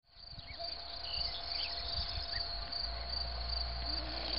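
Crickets chirping in a steady, high, pulsing trill, fading in at the start, with a low rumble for about a second and a half near the end.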